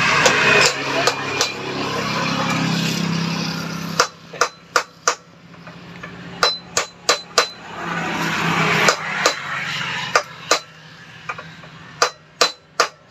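Hammer striking a steel drift to seat a motorcycle steering-head ball-race cup, in short runs of three or four sharp metallic taps, some with a brief ring. During the first four seconds, and again around eight to nine seconds, a low rushing drone sounds over it.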